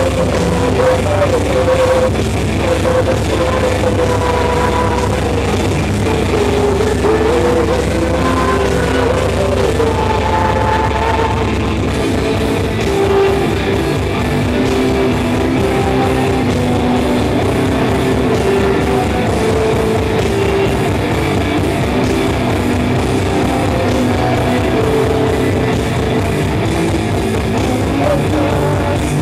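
Melodic metal band playing live: distorted guitars carrying a melodic lead line over a drum kit. The drumming changes pattern about twelve seconds in.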